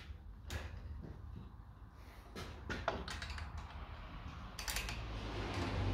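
Scattered light clicks and taps of a spanner and brake fittings being handled while brake pipes are fitted, over a low steady hum.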